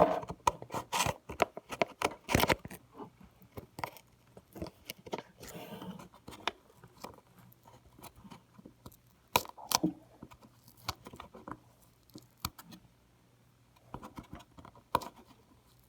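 An X-Acto knife prying under foam scenery and tearing it up. Irregular scrapes, cracks and tearing sounds come thick in the first few seconds, then thin out to scattered clicks, with a short cluster about ten seconds in and another near the end.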